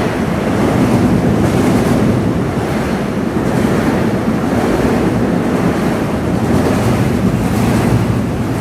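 Long Island Rail Road M7 electric train running through the station at speed: a loud, steady rush of wheels on rail and moving air.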